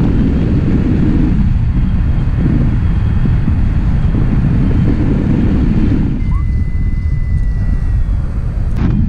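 Airflow buffeting the camera microphone in paraglider flight: a steady, low, rumbling wind noise that eases slightly partway through. A faint thin steady high tone sounds for about two seconds in the latter half.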